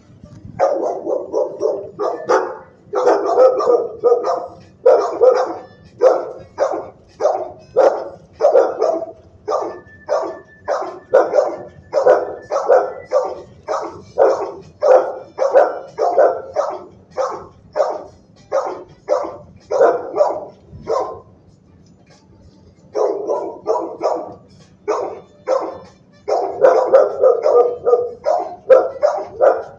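Shelter dogs barking in the kennel: a fast run of short barks, about two a second, which stops for about two seconds past the middle and then starts again.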